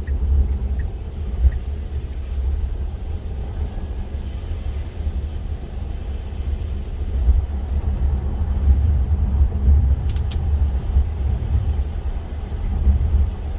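Steady low rumble of tyre and road noise inside a Tesla Model 3's cabin as it drives on a rain-wet road, with a couple of brief ticks about ten seconds in.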